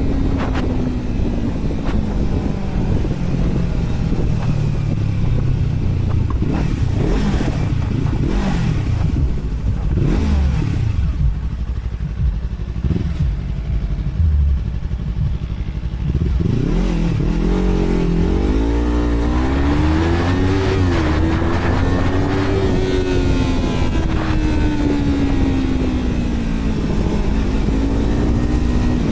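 Yamaha R3's parallel-twin engine through an open WR slip-on exhaust with no dB killer. The engine note falls away over the first several seconds, eases off for a few seconds, then rises and falls repeatedly as the throttle is worked through the rest of the stretch. Heavy wind noise on the microphone runs underneath.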